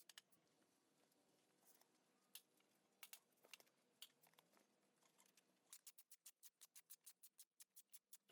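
Faint scattered clicks and taps, then a quick run of small sharp clicks, about seven a second, over the last two and a half seconds.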